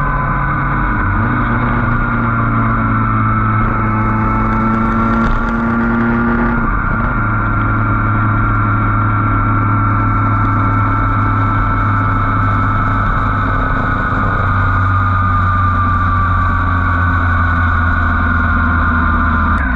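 Motorcycle engine running steadily at road speed under a haze of wind and road noise. Its note shifts in pitch about a second in and again around seven seconds in.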